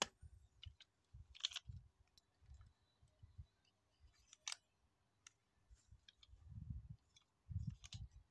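Faint clicks and clatter of hard plastic Beyblade launcher parts being handled, a few sharper clicks standing out, with low rubbing thuds from the hands.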